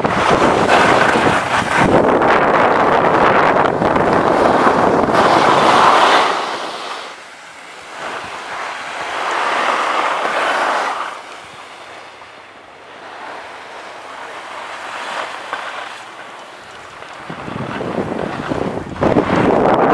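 Wind rushing across the microphone. It is loud for the first six seconds or so, drops away, swells again briefly in the middle, and picks up once more near the end.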